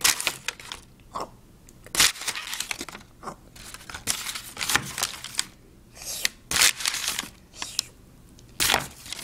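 Paper being torn and crumpled by hand, a string of short irregular rustling rips with brief pauses between them.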